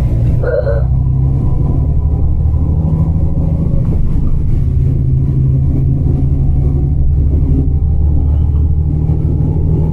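Steady low drone of a coach bus heard from inside the passenger cabin: engine and road rumble. A brief faint sound comes about half a second in.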